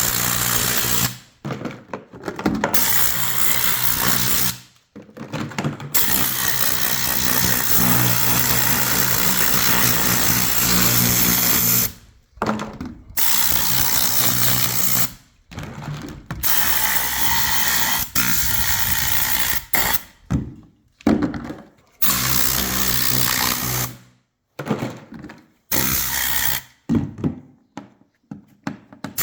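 Compressed-air blow gun blasting in repeated on-off bursts of rushing air, directed at labels on plastic storage boxes to lift them off. The blasts are long at first, then shorter and quicker near the end.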